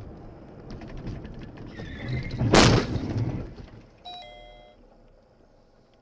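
Car collision: one loud crash about two and a half seconds in, with rumbling of the impact around it. About a second and a half later comes a brief electronic chime of a few steady tones.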